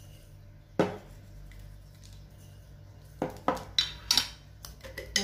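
Kitchenware being handled: one sharp clink about a second in, then a quick run of four or five clinks and taps in the second half, as an egg-wash bowl, fork, brush and seed jar are picked up and set down.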